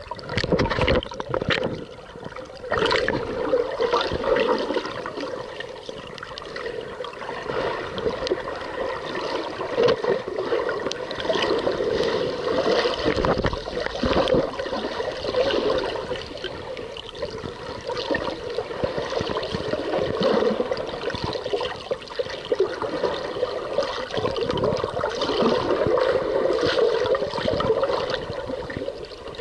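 Muffled underwater sound of water swirling and gurgling around a submerged action camera in its waterproof housing, a continuous wash that swells and fades, with scattered small clicks.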